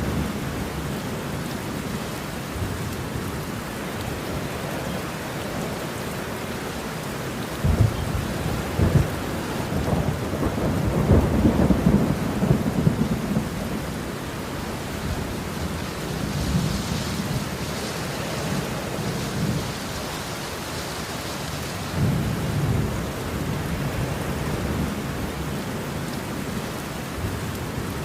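Steady rain falling, with thunder rolling in low rumbles several times; the biggest peal comes about a third of the way in, and a weaker rumble follows later.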